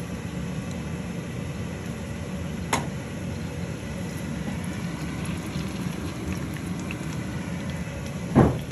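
Butter, garlic and lemon juice simmering in a stainless fry pan over a gas burner, a steady low bubbling. A sharp click comes about three seconds in, and a louder knock shortly before the end.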